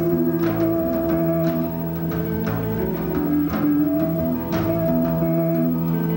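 Live rock band playing an instrumental passage: electric guitar and bass holding sustained notes over a slow drum beat, with a drum stroke about once a second.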